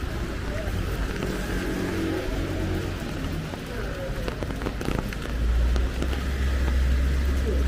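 Street in heavy rain: a steady hiss of rain and wet traffic, with a deep vehicle rumble that grows louder from about five seconds in.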